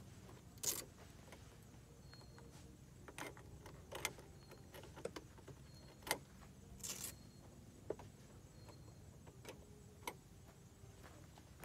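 Faint, scattered clicks and knocks from the latches and shell of a hardshell rooftop tent being worked by hand, with two short scraping rustles, about a second in and about seven seconds in.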